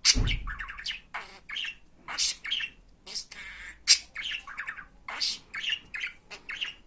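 Budgerigar chattering in a quick run of sharp chirps and squawks, with one loud squawk just before the middle. A low thump sounds right at the start.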